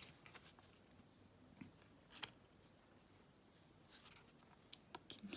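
Near silence, with faint rustles and a couple of light clicks from tarot cards being handled: one about two seconds in and another near the end.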